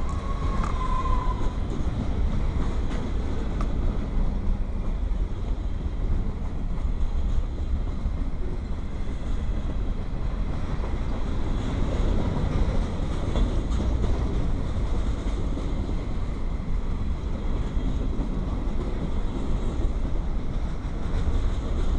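Union Pacific manifest freight train rolling past, its cars giving a steady rumble with the clatter of wheels on rail joints.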